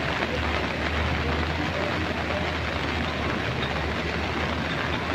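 Heavy rain falling steadily, with a low steady rumble underneath.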